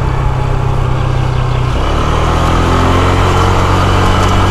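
Motorcycle engine running under way, with wind noise on the microphone. About two seconds in its note steps down, then climbs slowly as the bike pulls away again.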